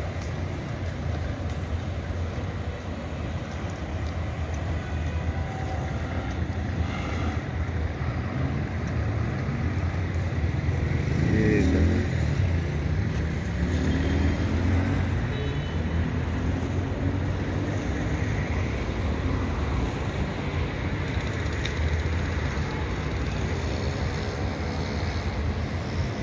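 Steady city street traffic noise with low engine rumble; about eleven seconds in, one vehicle's engine speeds up and dies away as it passes.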